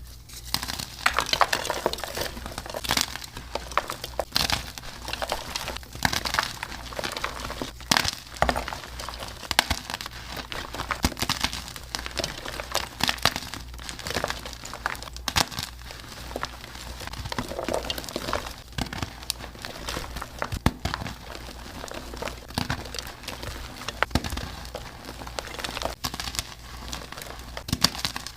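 Blocks of dyed and reformed gym chalk being crushed and crumbled: continuous crunching and crackling with many sharp cracks as the chalk breaks apart.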